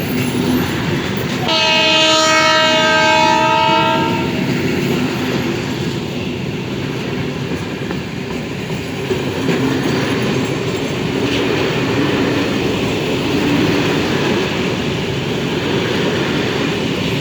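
Diesel freight locomotive's horn sounding one chord for about two and a half seconds, starting about a second and a half in, over the steady rumble and wheel clatter of the freight train rolling past.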